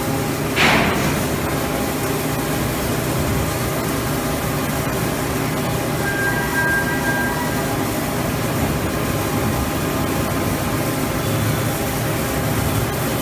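Steady machinery noise at an automatic pipe-welding station, with a short hiss about half a second in.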